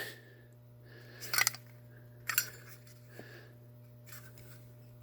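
Brass Zippo lighter and its insert being handled, giving small metal clicks and scrapes, with two sharper ones about a second and a half and two and a half seconds in, over a steady low hum.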